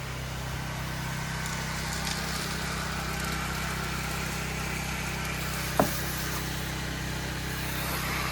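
Pressure-washing rig's engine running steadily with a low hum, spray hiss over it. About six seconds in, one brief sharp squeak that falls in pitch.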